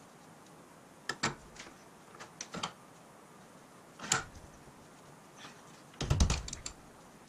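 Metal clicks and knocks as a steel bracket is handled and set into a rag-padded bench vise and the vise's sliding handle bar is turned and tightened. A few light clicks come in the first three seconds, a single knock about four seconds in, and a louder cluster of clanks about six seconds in.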